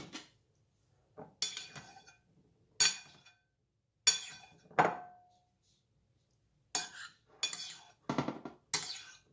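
Dishes and metal kitchenware clinking and clattering in a string of about nine separate knocks, some ringing briefly.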